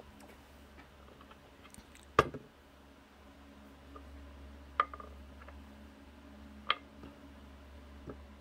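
Small hard objects being picked up and set down on a wooden bench top: three sharp clicks and knocks, the first about two seconds in the loudest, and a fainter one near the end, over a faint steady low hum.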